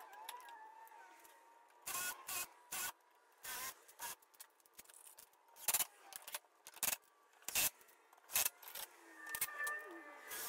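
A series of short, sharp knocks and clatters, about a dozen spread through, from plywood pieces, clamps and a cordless impact driver being handled on a workbench. A faint squeak comes in near the end.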